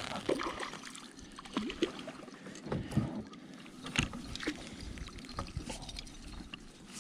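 Water sloshing around a kayak with scattered short knocks and clicks, the sharpest about three and four seconds in, while a hooked fish is fought and reeled in alongside.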